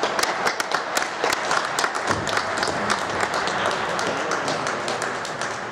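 A small crowd applauding, many hands clapping irregularly, thinning out near the end.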